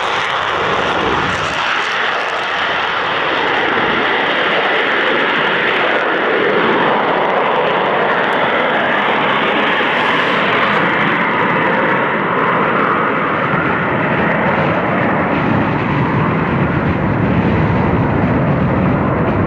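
F-35 Lightning II's single Pratt & Whitney F135 jet engine running loud and steady, with its low rumble growing stronger over the second half.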